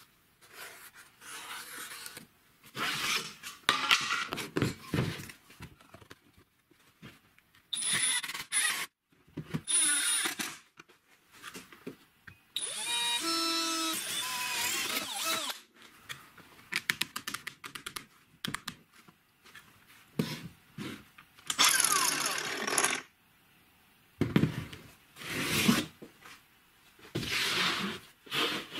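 A cordless drill runs for about three seconds near the middle, drilling a hole through a plastic guard. Before and after it come shorter, separate bursts of workshop noise.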